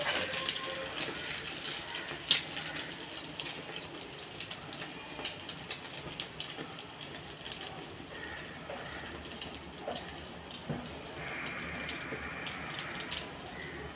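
Egg-soaked bread slice frying in hot oil in a pan, sizzling steadily with scattered crackles and one louder pop about two seconds in.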